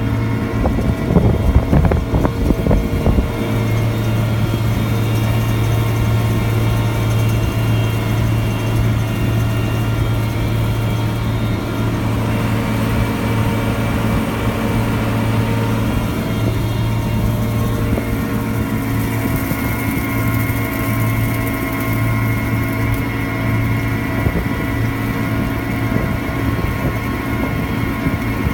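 Sampo Rosenlew 2065 Hydro Turbo combine harvester running steadily, its engine drone mixed with a layer of steady machine whines. There is irregular low rumbling and knocking in the first few seconds.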